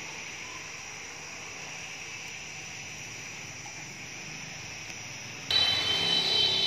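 Steady high chirring of insects. About five and a half seconds in it turns suddenly louder, with several steady high-pitched tones on top.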